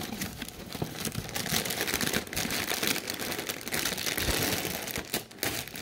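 Crinkly plastic food packaging rustled and crackled by hand without pause, loudest in the middle and easing near the end.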